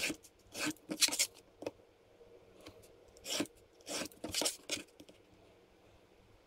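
Craft knife cutting printed paper on styrene board along a metal ruler: a few short scraping strokes in the first second and a half, then several more between about three and five seconds in.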